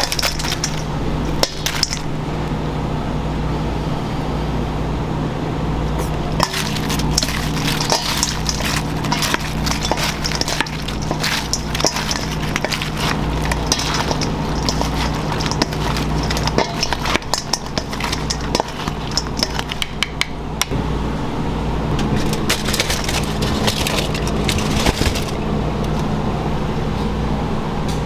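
Kitchen clatter: many metal and dish clinks and knocks over a steady low machine hum.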